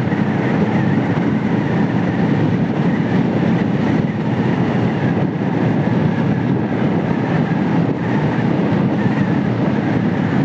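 125cc motorcycle cruising steadily at speed, its engine running under a loud, unbroken rush of wind over the microphone.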